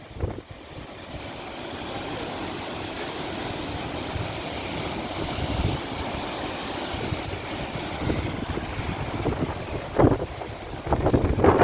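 Steady roar of the Skógafoss waterfall, with wind rumbling on the microphone and two louder gusts near the end.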